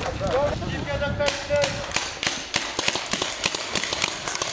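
Game guns firing in a quick, irregular run of sharp pops and snaps, starting about a second in.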